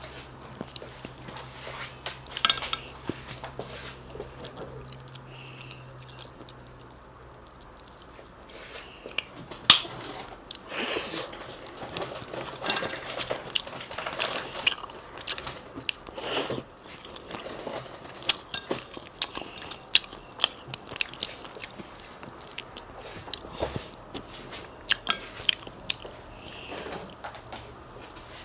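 A person eating seasoned seafood close to the microphone: biting and chewing with irregular crisp clicks and crunches. There is a quieter pause about a third of the way in.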